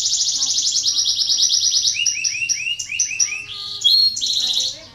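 Canary singing: fast rolling trills that change about two seconds in to a run of downward-sweeping notes, then higher trills and a brief rising whistle near the end.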